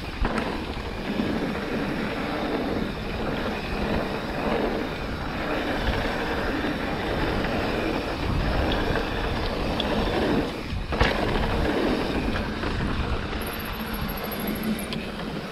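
Mountain bike rolling fast down a dirt singletrack: wind buffeting the microphone over the noise of the tyres on the dirt, with a sharp knock about eleven seconds in.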